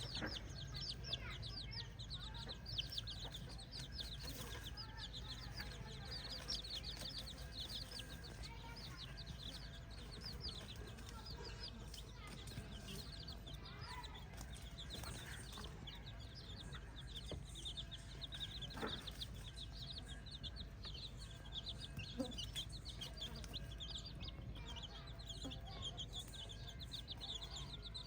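A flock of chickens clucking, with a continuous chatter of short, high peeps.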